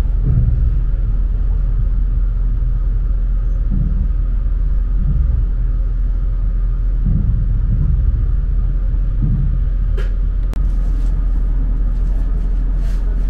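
Steady low rumble of a passenger train running at speed, heard from inside the coach, with a couple of sharp clicks about ten seconds in.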